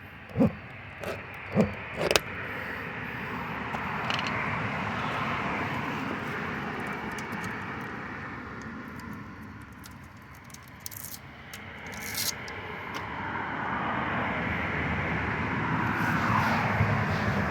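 Passing road traffic: a rush of vehicle noise that swells, fades and swells again, with a few short knocks in the first two seconds.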